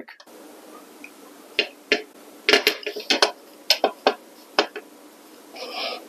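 Hand wrenches clinking on metal as they are handled and fitted to a bicycle crank puller: about ten sharp, separate clinks through the middle, then a short scrape near the end.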